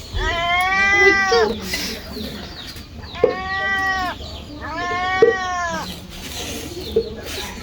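A cat meowing: three long, drawn-out meows, each rising then falling in pitch, with short gaps between them.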